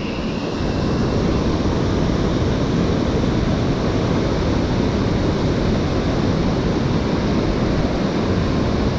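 Steady rush of a mountain stream, a loud even wash of water heaviest in the low range.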